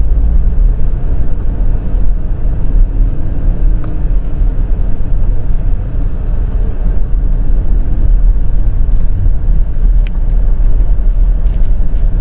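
Porsche engine and drivetrain running at low speed with a steady low rumble as the car creeps along. A few faint clicks come in the last couple of seconds.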